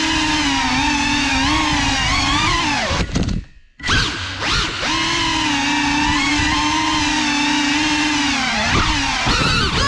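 FPV quadcopter's motors and propellers whining, the pitch wavering with the throttle. About three seconds in the motors throttle right down and go almost silent for under a second, then spin back up.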